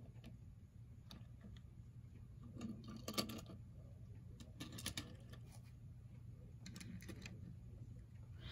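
Faint, scattered clicks and light clinks of die-cast Hot Wheels toy cars being picked up and moved by hand, with a small cluster of clicks about three seconds in and again around five seconds.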